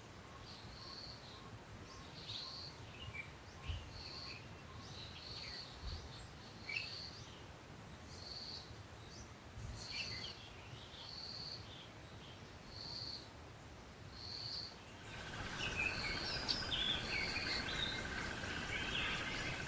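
Birds calling in a jungle: one repeats a short high note about once a second among scattered falling chirps. About fifteen seconds in the background changes to busier bird chatter over a steady high drone.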